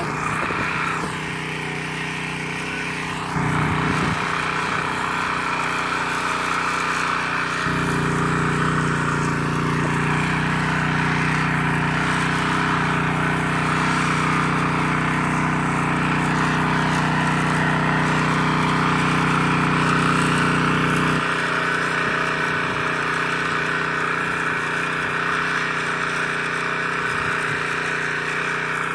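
Small walk-behind tiller's engine running steadily as it works the soil, louder and deeper through the middle stretch of about thirteen seconds.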